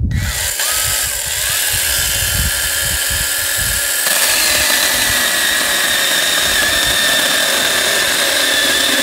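Worx 5-inch 20V battery mini pruning chainsaw running with a steady electric whine. About four seconds in, the chain bites into a log about 3.5 inches thick and the sound thickens as it saws through easily, "like a hot knife through butter".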